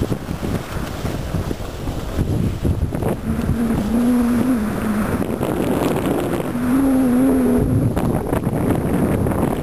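Wind rushing over the microphone and skis scraping over groomed snow while skiing downhill. Two short wavering tones rise over the noise, one about three and a half seconds in and one about seven seconds in.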